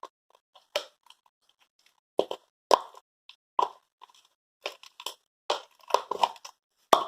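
Freshly activated homemade glue slime being worked, making irregular sticky pops and clicks, some in quick clusters.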